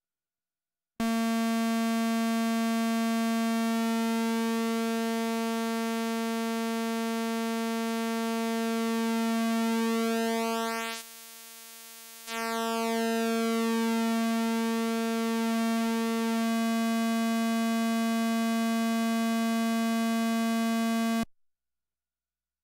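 Eurorack synthesizer oscillator's pulse wave at a steady pitch, its pulse width turned by hand on the PWM knob so the tone's colour keeps shifting. Just past halfway the tone thins and nearly drops out for about a second, then comes back, and it cuts off suddenly near the end.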